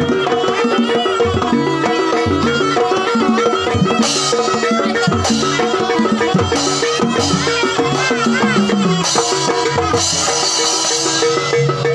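Traditional jaranan music playing: drums beating a steady rhythm under pitched melody instruments, with brighter, hissier stretches partway through.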